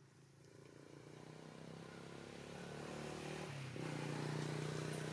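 A motor vehicle's engine running steadily and growing louder as it draws near, its note shifting about two-thirds of the way through.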